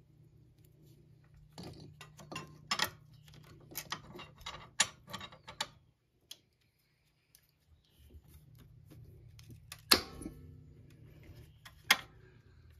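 Steel locking C-clamp pliers being handled and set on the generator's sheet-metal panel: a run of metal clicks and clanks, a brief silent gap midway, then two sharp snaps, the louder one about ten seconds in, as the clamp is closed and locked. A faint steady low hum lies under it.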